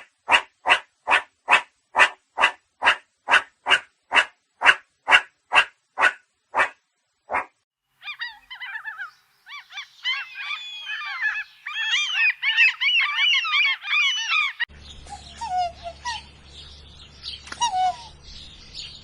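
A run of about sixteen short animal calls repeated evenly, roughly two a second, then several seconds of busy chirping from many calls overlapping, and after a cut a few scattered calls over a low steady hum.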